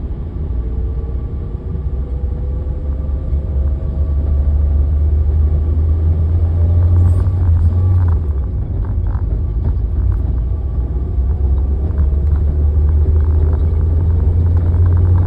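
A vehicle's loud, steady low rumble with a faint whine that slowly rises in pitch, and a few scattered clicks.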